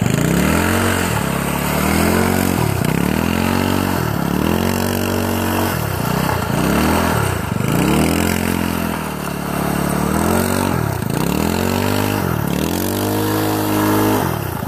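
Small gasoline engine of a caterpillar-tracked off-road scooter, revving up and easing off again and again, about every second and a half, as it is ridden.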